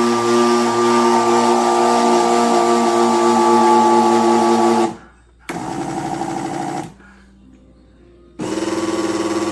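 Mondial Premium L51 800 W blender motor run in bursts while blending carrot cake batter: a long run of about five seconds, a short burst around the middle, then starting again near the end.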